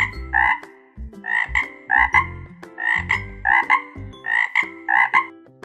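A frog croaking over and over: about a dozen short, same-pitched croaks, most of them in quick pairs.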